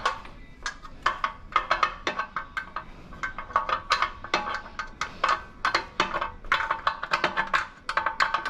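Background music with a busy percussive beat of sharp, woody clicks and short ringing notes.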